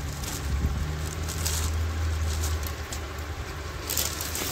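Rustling handling noise as folded cloth suit pieces are moved about, over a steady low hum.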